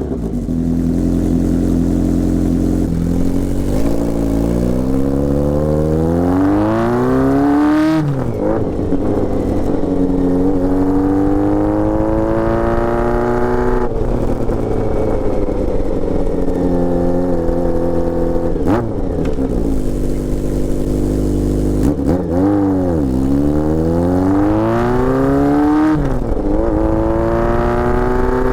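Honda Nighthawk S inline-four motorcycle engine running through a hand-built custom exhaust while the bike is ridden. The engine note climbs steadily under acceleration and drops sharply at each gear change, several times over.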